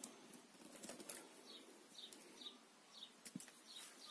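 Faint rustling and a few light clicks as hands handle a faux-leather bag and its scarf-wrapped handle. A run of faint short chirps, about two a second, sounds through the middle.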